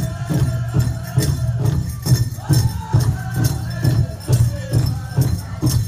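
Powwow drum group singing over a steady, even beat on a big drum.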